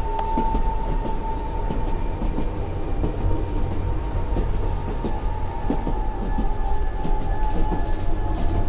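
Passenger train running, heard from inside the carriage: a steady low rumble with a held high tone over it and scattered light clacks.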